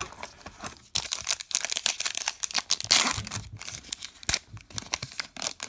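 Crinkling and rustling of a baseball card pack wrapper being handled and torn, with sharp clicks of cards being shuffled; the rustle builds about a second in and is loudest around the middle.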